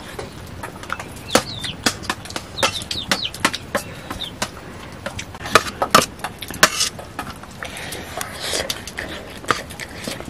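Metal spoons clinking and scraping against stainless steel plates during a meal, in a string of irregular sharp clicks.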